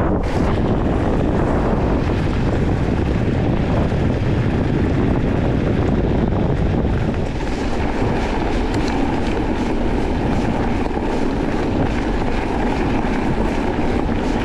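Wind rushing over the microphone of a mountain bike moving at speed, with the tyres crunching and crackling over a gravel track.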